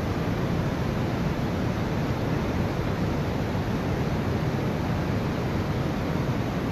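Steady, even roar of falling water: the underground waterfall of the Trigrad River inside Devil's Throat Cave.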